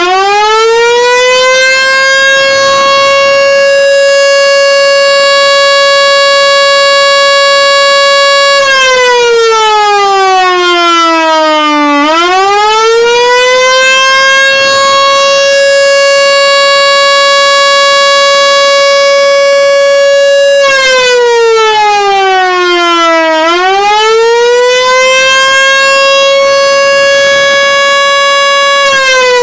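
Siren sounding an all-clear signal. A steady, loud tone holds for several seconds, then sags in pitch and winds back up. This happens twice before the tone settles steady again.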